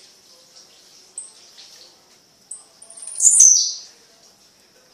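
Blue-black grassquit (tiziu) singing: short high chirps about every second and a half, then one louder, buzzy note that slides down in pitch about three seconds in.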